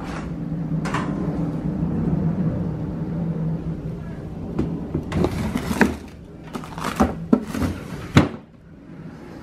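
Frozen-food bags and a plastic food container rustling and knocking together as a freezer drawer is rummaged and loaded, ending in one sharp knock just after eight seconds in. A steady low hum runs underneath until then.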